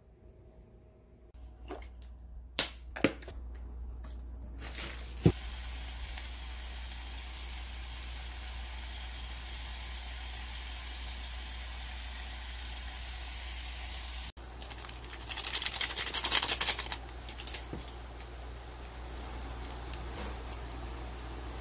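Kitchen cooking sounds at a frying pan: a few light clicks and knocks at first, then a steady sizzling hiss from the pan. Partway through, a louder rough rustle runs for about two seconds.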